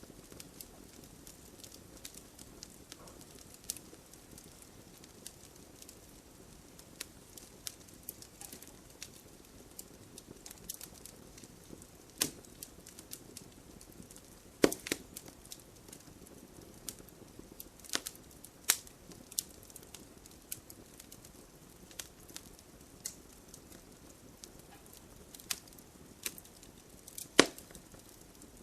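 Campfire of burning logs crackling, with irregular sharp pops and snaps over a soft low rush of flame; a few pops stand out much louder than the rest.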